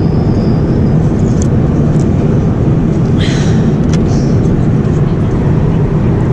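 Steady low drone of cabin noise inside a jet airliner in flight, with a few faint clicks and a short rustle about three seconds in.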